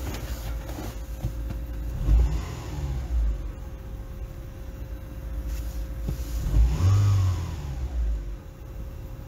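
Opel Zafira 1.8 four-cylinder petrol engine idling and blipped twice, the revs rising and falling about two seconds in and again, higher, about seven seconds in. It picks up and holds its revs evenly with no misfire.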